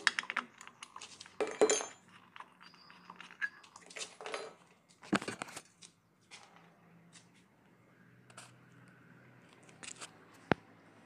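Sharp metallic clicks and clatter, in two busy spells, as the plug is worked loose from a Maruti Omni's rear differential housing, with one lone click near the end.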